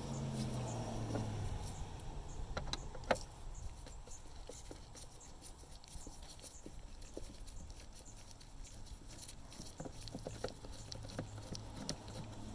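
Irregular clicks and light knocks of a T20 Torx driver working the screws out of a plastic air cleaner housing, the sharpest two clicks about three seconds in and a quick run of small ticks near the end.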